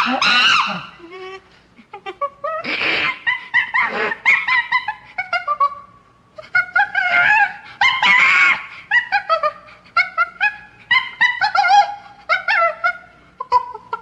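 Monkey screaming and calling in a run of short, high, wavering cries, with louder, harsher screams about three and eight seconds in.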